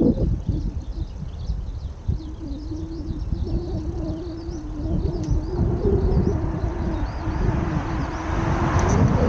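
Small birds chirping repeatedly over a steady low engine hum and a low rumble. A louder vehicle noise builds over the last few seconds.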